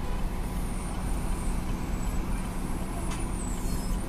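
Steady low rumble of a car and the surrounding road traffic, heard from inside the car's cabin.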